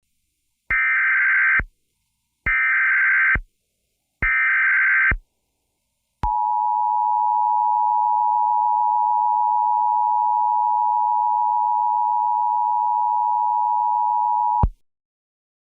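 Emergency Alert System alert tones: three short bursts of SAME digital header data, each about a second long, then the two-tone attention signal (853 and 960 Hz) held steady for about eight seconds before it cuts off. Together they signal an incoming emergency broadcast, here a tornado warning.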